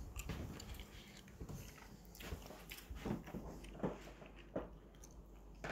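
A few soft, evenly spaced footsteps on carpet, with faint rustling from a handheld phone.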